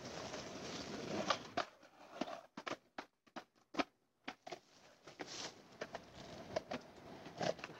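Skateboard wheels rolling on asphalt, with a sharp clack about a second in. The sound then drops nearly out for a couple of seconds, broken by a string of clicks, before faint camcorder noise and handling clicks return.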